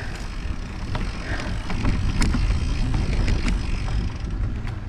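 Mountain bike rolling down a dirt singletrack: steady low rumble of wind on the microphone and tyres on the dirt, with scattered sharp clicks and rattles from the bike over the rough trail.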